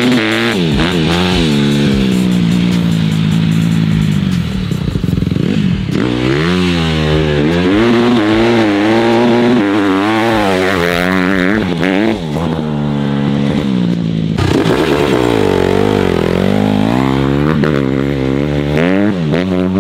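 Dirt bike engine revving up and down over and over as the rider throttles and shifts through the gears, riding across loose dirt.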